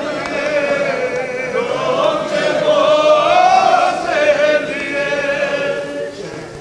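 A crowd of mourning men chanting together in unison, a drawn-out melodic chant that rises and falls in pitch.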